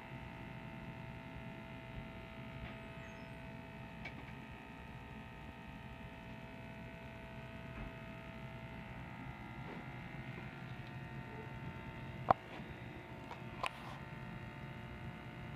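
Steady hum of an aquarium pump, with two sharp clicks near the end, the first the louder.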